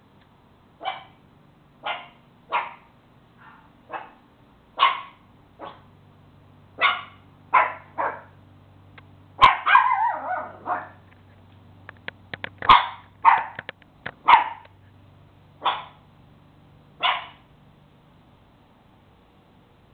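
A small brown-and-white dog barking repeatedly, about fifteen sharp barks roughly a second apart, with one longer, wavering bark about ten seconds in.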